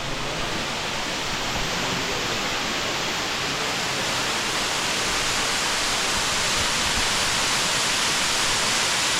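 Waterfall rushing: a steady, even roar of falling water that slowly grows louder.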